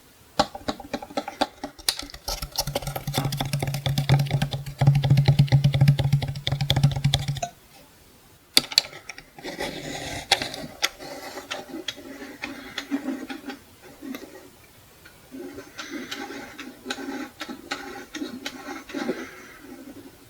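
Fingers tapping and scratching quickly on a wall clock's plastic and metal casing. A dense run of taps with a low hum under it lasts about seven seconds. After a short pause comes looser tapping and scratching in uneven bursts.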